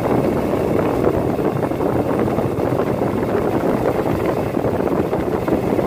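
Wind buffeting the microphone steadily, a low rushing noise with no clear tones.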